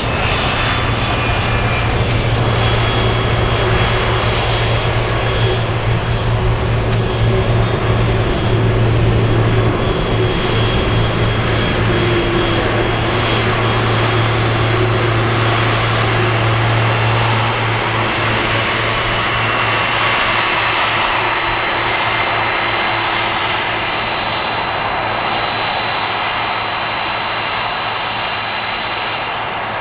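Boeing 767-300 freighter's twin turbofan engines running at taxi power: a steady rushing noise with a high whine. The whine grows stronger in the last third as the jet turns to face the microphone.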